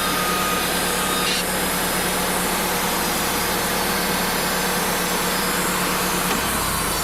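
Wood-Mizer LT35 portable band sawmill cutting through air-dried white pine boards. The engine runs steadily under a continuous hiss from the blade in the wood.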